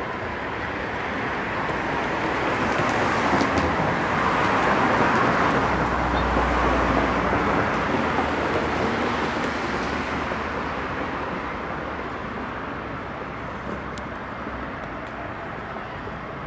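Street traffic: a motor vehicle passing by, its noise building to a low rumble at its loudest about six seconds in and then fading away.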